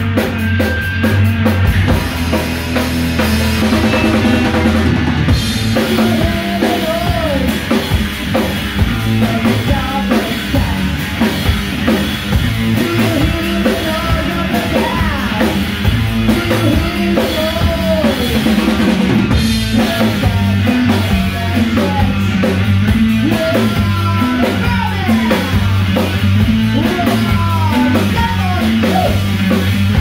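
Live garage-rock band playing loudly: electric guitar, bass guitar and a drum kit, with a woman singing over them.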